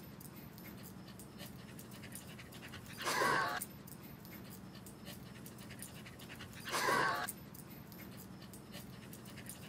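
Welsh Corgi panting, heard as two drawn-out breathy puffs about four seconds apart over a faint steady hum.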